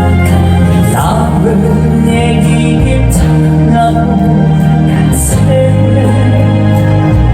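Loud trot song music, the instrumental stretch before the vocal comes in: held bass and chord notes changing every second or two, with a couple of cymbal-like crashes.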